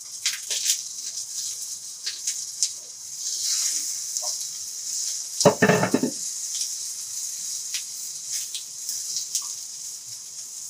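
Beef gola kababs and sliced onions sizzling on a hot sizzler tray: a steady high hiss, with light clinks of the pan and spatula against the tray. A brief, loud voice-like sound cuts in about halfway through.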